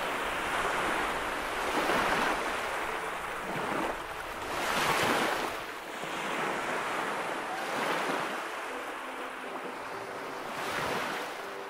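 Sea waves washing in slow swells, each rising and falling away about every three seconds.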